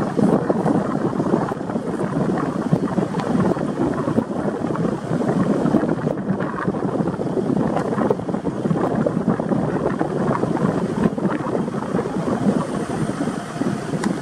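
Steady noise of a car driving slowly, with wind buffeting the microphone.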